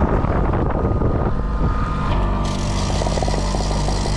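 Boat motor running steadily at trolling speed, with wind and water noise; the hiss rises sharply about two and a half seconds in.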